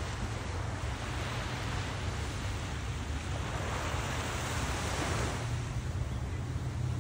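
Small ocean waves breaking and washing up the sand. One wash swells from about a second in, peaks near five seconds and fades. Under it runs a steady low rumble of wind on the microphone.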